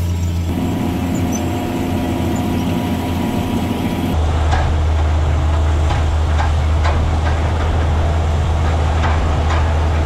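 Tractor engine drones steadily inside the cab. After a cut about four seconds in, a heavy harrow is dragged through wheat stubble behind a tracked tractor, heard as a steady low rumble with scattered rattles.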